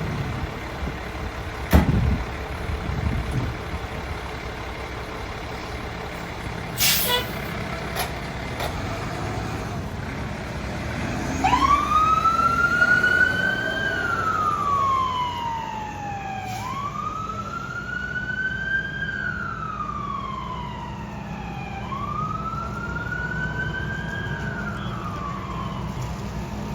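Fire engine's siren wailing, each cycle rising quickly and then falling more slowly, repeating about every five seconds from about eleven seconds in. Underneath is the fire truck's engine rumbling steadily, with a sharp knock about two seconds in and a short hiss about seven seconds in before the siren starts.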